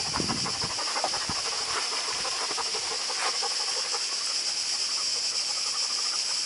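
Steady high-pitched buzzing hiss of cicadas, with a few soft low thumps in the first second and a half.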